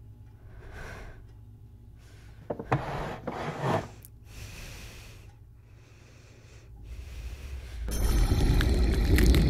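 A woman's heavy breathing, a breath every second or so, with a louder gasping burst about three seconds in. About eight seconds in, a loud low rumble cuts in and holds.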